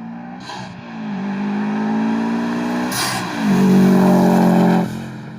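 Subaru STI's turbocharged flat-four accelerating hard under full throttle, engine pitch climbing through the gears. Short blow-off valve hisses come at the gear changes, a faint one about half a second in and a louder one about three seconds in. The throttle closes and the engine drops away near the end.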